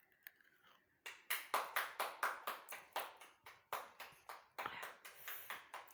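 Hands clapping in a steady rhythm, about four claps a second, starting about a second in.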